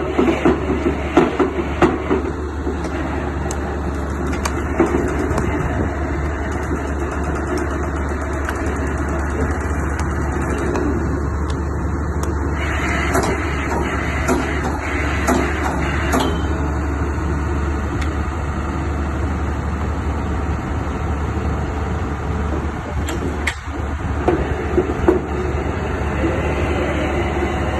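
Heavy construction machinery, an excavator rig working on drilling and piling, running steadily with a constant low drone and scattered metallic knocks, most frequent in the first couple of seconds.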